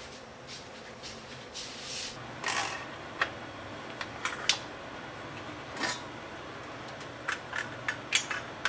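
Stainless steel pressure cooker lid being unlocked and opened: a series of sharp clicks and metal clinks that come more thickly near the end, after a few short hissing sounds about two seconds in.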